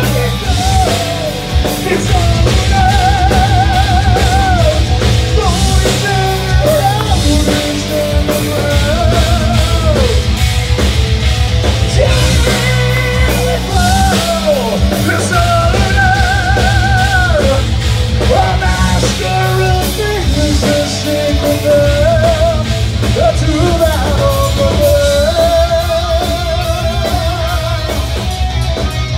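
Heavy metal band playing live: a singer holds long notes with a wide vibrato over electric guitars and a drum kit driving a rapid, steady bass-drum beat.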